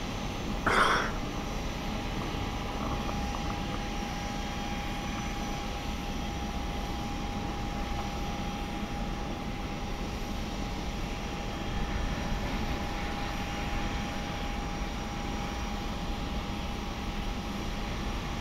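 Steady drone of jet aircraft and ground equipment on an airport apron, with a constant whine. A short, loud squeak-like sound comes about a second in.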